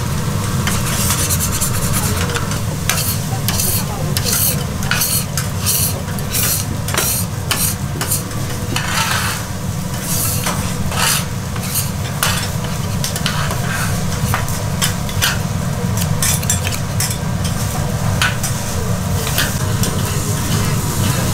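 Oyster blade and chuck flap steak pieces sizzling on a hot iron plate, with dense irregular crackling, over a low steady hum.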